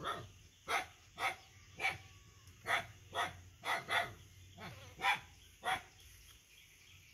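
A dog barking: about ten short, sharp barks at half-second to one-second gaps, stopping about six seconds in.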